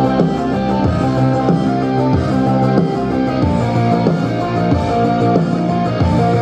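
Instrumental music with guitar, a steady run of plucked notes over a sustained bass.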